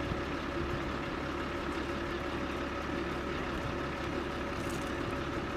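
Diesel engine of a military wrecker truck running steadily at idle while its crane holds a load, a steady hum with a faint whine.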